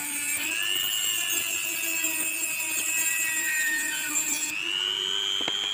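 Digital Craft die grinder (rotary tool) running with a small metal cut-off disc, cutting through a steel nail in a high, steady whine. The pitch steps up about half a second in and again near the end as the load on the disc changes.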